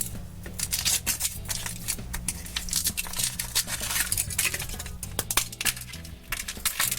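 Foil wrapper crinkling as it is peeled off a chocolate surprise egg, a run of quick crackles.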